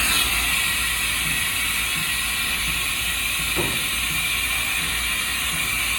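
1994 Haas VF-4 vertical machining center running, a steady mechanical whir and hiss with faint regular ticking underneath. A brief squeak about three and a half seconds in.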